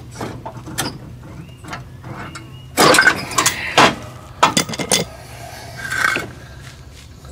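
Socket wrench clicking and clanking on a riding mower's blade bolt as the bolt is tightened, with the blade held by a wood block. A run of sharp metal knocks comes a little under halfway through, and another near the end.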